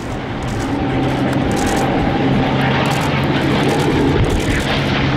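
P-51 Mustang's Merlin V-12 piston engine and propeller droning steadily in a fly-by pass, growing louder as the plane approaches.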